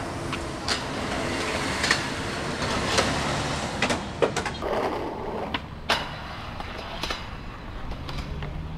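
Skateboard trucks grinding along a metal handrail and the board clattering on concrete steps, heard as about half a dozen sharp knocks and scrapes, over steady city traffic noise.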